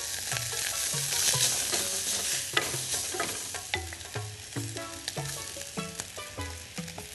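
Cooked long-grain rice sizzling as it is spooned into a saucepan of hot olive oil and curry powder, with taps and scrapes of a wooden spoon against a glass bowl. The sizzle is loudest in the first few seconds, then dies down.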